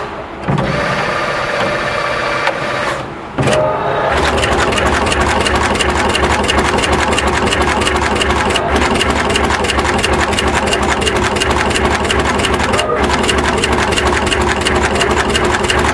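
Automatic radial component insertion machine running: a fast, even clatter of its insertion head cycling, over a steady mechanical hum. The sound drops out briefly about three seconds in, then resumes.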